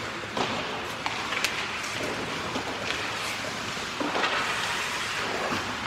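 Ice hockey skate blades scraping across the ice, with several sharp clacks of sticks hitting the ice and puck.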